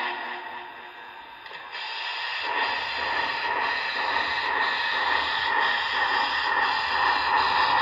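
Broadway Limited Imports Big Boy model steam locomotive running, its onboard sound playing steady steam hiss and exhaust, growing louder about two seconds in as it comes toward the microphone.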